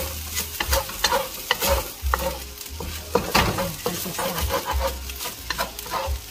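Wooden spatula scraping and turning rice around a hot wok, with irregular scrapes and clicks over a steady sizzle of the rice frying.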